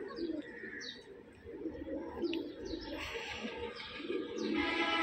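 Domestic pigeons cooing in low, repeated bursts, with short high falling chirps from birds over it.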